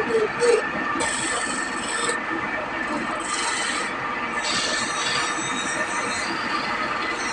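Continuous rasping, scraping sound of a tool working wood, with a faint steady whine underneath. Two short squeaks come right at the start.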